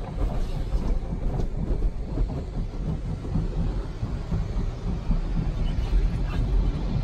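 Water spray and wash equipment of a tunnel car wash pouring and drumming over the car, heard from inside the cabin as a steady low rumble.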